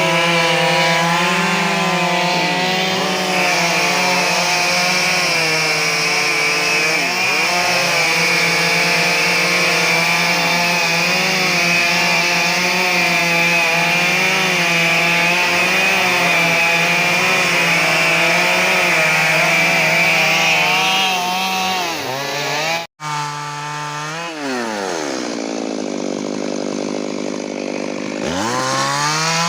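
Stihl MS 382 two-stroke chainsaw running near full throttle while cutting through wood, its engine pitch wavering under the load of the cut. After a brief dropout about three-quarters through, the engine speed falls away, then climbs again near the end.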